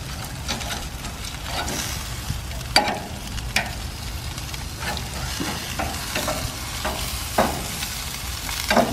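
Chicken pieces sizzling on a grill while a metal spatula and tongs turn them over, scraping and clacking against the grates. There are several sharp metallic knocks, the loudest about three seconds in.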